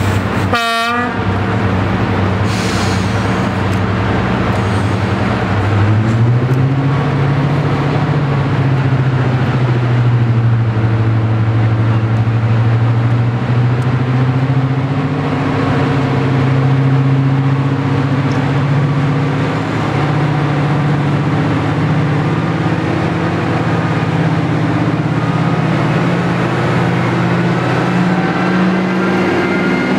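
Twin Napier Deltic engines of a Class 55 Deltic diesel locomotive working hard as it pulls out of the station. The low engine note climbs about six seconds in, holds steady, then rises again near the end.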